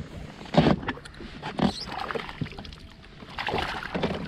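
A hooked fish thrashing at the water's surface: a few separate splashes, the longest near the end.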